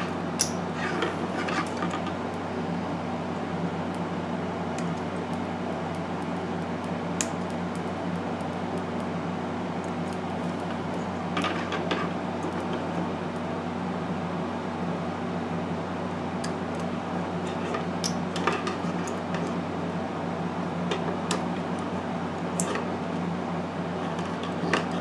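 Small plastic model kit parts and tools being handled on a work mat, giving scattered light clicks and taps every few seconds. A steady low fan-like hum runs underneath.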